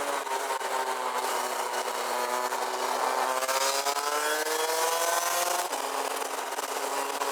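Rotax Max DD2 125 cc two-stroke kart engine on the track: revs sit low at the start, then climb steadily as the kart accelerates, and hold near the end. Wind rush on the onboard microphone hisses throughout.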